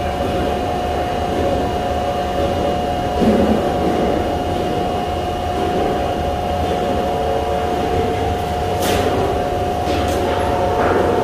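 Steady drone of shop machinery in a metal fabrication plant, a constant hum with a low rumble underneath. A couple of sharp metal clinks near the end, from sheet metal being handled.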